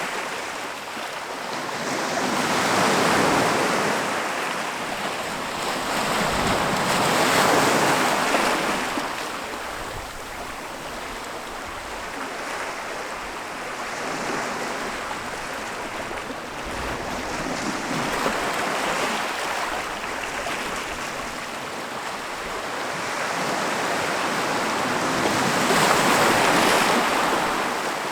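Ocean surf: waves breaking onto the beach one after another, each surge of rushing noise swelling and washing back out over several seconds, about five in all, the loudest near the middle and the end.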